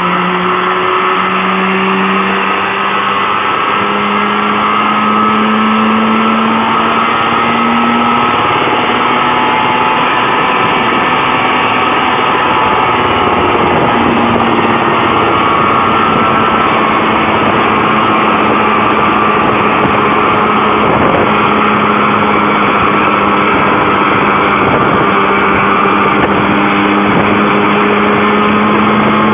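Engine of a homemade helicopter running loudly and steadily. Its pitch climbs a little over the first several seconds, then holds.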